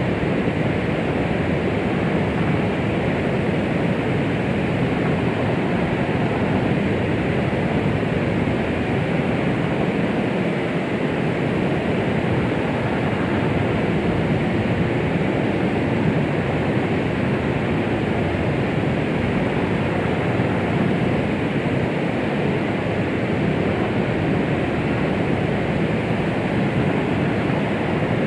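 Steady, even rushing noise with no rhythm or change, fuller in the low and middle range and dull at the top: a white-noise "womb sound" track for soothing a baby to sleep.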